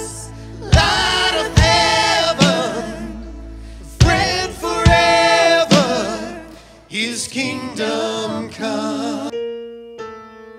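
Live worship band playing: singers' voices over drums and keyboard, with strong drum hits about once every second. About nine seconds in the singing and drums stop, leaving a soft held keyboard chord.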